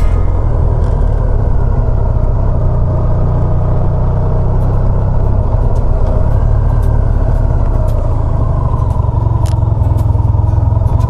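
Honda Crosstourer's V4 engine running at low revs through its Leo Vince exhaust while the motorcycle descends hairpin bends, the engine note shifting about halfway through, with wind rushing over the camera microphone.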